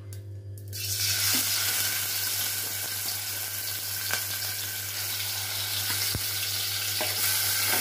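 Turmeric-and-salt-coated chicken pieces hitting hot oil in an aluminium pot. A sudden sizzle starts about a second in and then holds steady, with a light knock late on.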